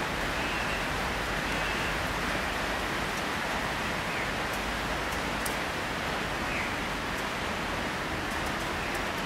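Steady, even outdoor hiss with no distinct events, only a few faint ticks.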